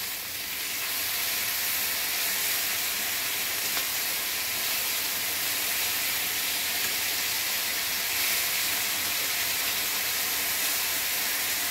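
Thick-cut bacon frying in a skillet: a steady sizzling hiss that swells a little in the first second as the slices are turned over.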